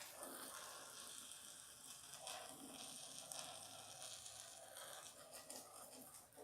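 Spoon stirring a sticky, foamy slime mixture of craft glue, shaving cream and contact lens solution in a bowl: faint, uneven scraping and sticky smacking as the slime starts to set.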